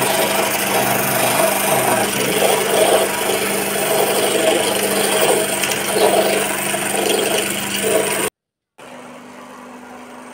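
Hand-held buffing machine's abrasive wheel grinding against precured tread rubber, a loud steady rasping over the motor's hum, buffing the rubber before solution is applied. About eight seconds in the sound cuts off abruptly, and after a short gap the motor is heard running alone, much quieter.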